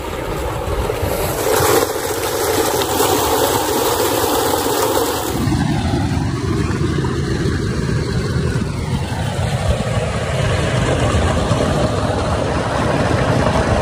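Tubewell water gushing from a pipe into a concrete tank and rushing along an irrigation channel: a loud, steady rush that turns fuller and deeper about five seconds in.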